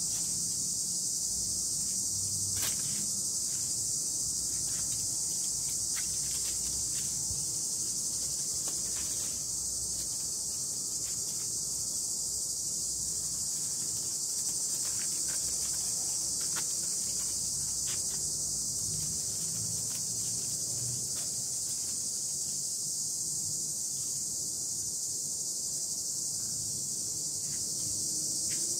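A steady, unbroken high-pitched chorus of insects, with a few faint ticks scattered through it.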